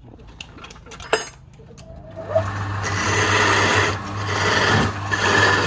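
Wood lathe spinning a wooden spindle. About two seconds in, a hand-held turning chisel starts cutting, and a loud, continuous scraping of shavings coming off the wood rises over the motor's steady hum. A few light clicks come before the cut begins.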